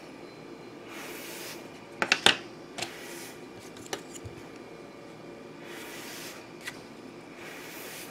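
Small plastic clicks and taps as 3D-printed plastic standees holding cardboard tokens are handled and set down on a tabletop, the loudest a quick cluster of clicks about two seconds in, then a few single taps.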